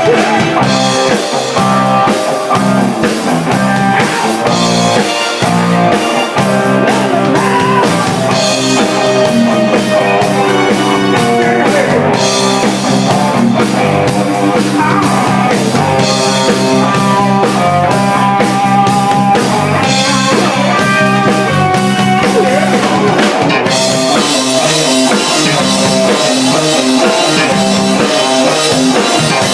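Live rock band playing an instrumental break, with drum kit and electric guitar and no vocals.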